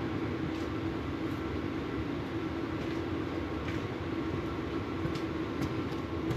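A steady mechanical hum with a low drone, like a running fan or other machine, with a few faint light clicks over it.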